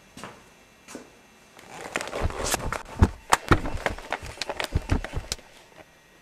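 Two footsteps on a concrete floor, then about four seconds of scuffling with sharp knocks and heavy thuds as a person falls to the floor. The loudest thud comes about three seconds in.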